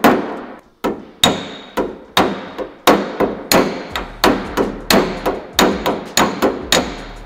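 Body hammer striking thin sheet-steel door skin over a dolly: a steady run of sharp metallic taps, about three a second, some with a brief ring. The hammering is on the tack welds, stretching them to relieve the shrinkage that has pulled the seam too tight.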